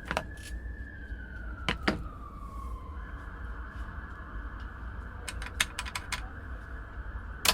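Emergency vehicle siren in a city street, wailing slowly up and back down, then switching to a fast up-and-down pattern about three seconds in, over a steady low rumble of traffic. Sharp clicks and knocks come now and then, with a quick run of them past the middle.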